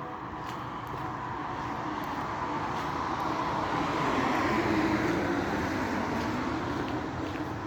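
A rushing rumble with a few faint steady tones in it, growing louder to a peak about halfway through and then easing off, like something passing by.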